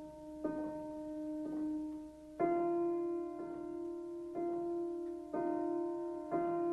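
Slow, sparse piano music: single notes struck about once a second and left ringing over a held note.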